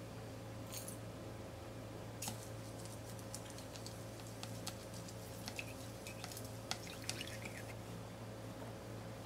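Chopsticks clicking and tapping against a glass mixing bowl while an egg is beaten, a run of quiet irregular light taps over a low steady hum.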